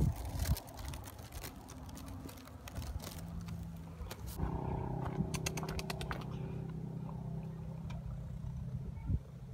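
A steady low engine hum, typical of a vehicle idling, starts about four seconds in and stops near the end. Before it there are scattered rustles and clicks.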